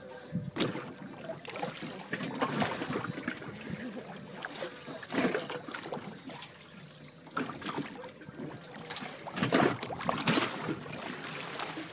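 Seawater sloshing and splashing against a boat's hull in irregular surges, with a faint steady hum underneath.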